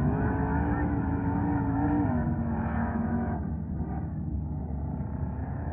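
Off-road vehicle engine revving hard: its pitch climbs at the start and holds, eases off around three seconds in, and rises again near the end.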